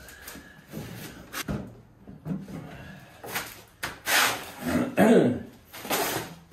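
Knocks and bumps of a kitchen drawer base cabinet being tipped upright and shuffled across the floor into place, with a man's grunts and throat noises of effort from about four to six seconds in.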